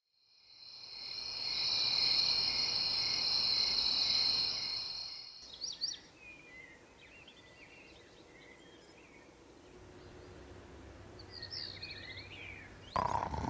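Night-time insect chorus, a steady high buzzing that fades in and cuts off about five seconds in. Scattered bird chirps follow, then a louder sound starts near the end.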